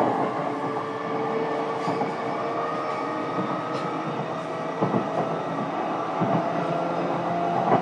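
Running sound inside the motor car of a JR East E233 series electric commuter train travelling at a steady speed: a steady motor and gear whine over wheel rumble on the rails, with a few faint clicks from the track.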